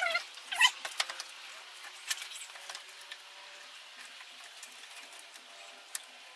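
Short squeaks of plastic rubbing on plastic in the first second, then a few sharp clicks and taps as a headlight assembly is worked into its mounting on a pickup's front end.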